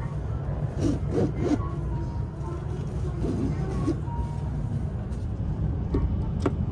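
Steady low rumble inside a Shinkansen green-car cabin, with soft rustling of a hand on the seat's headrest cover. Near the end there is a sharp click as a USB charger is pushed into the seat's power outlet.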